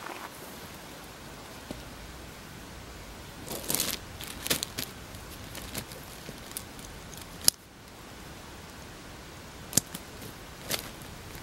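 Outdoor gear being handled at a backpack: scattered rustling and a few sharp clicks over a steady outdoor hiss.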